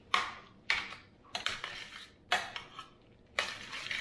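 A spoon knocking and scraping against a metal roasting pan as chunky potato salad is folded together with sauce. There are about five strokes, each starting sharply and then fading.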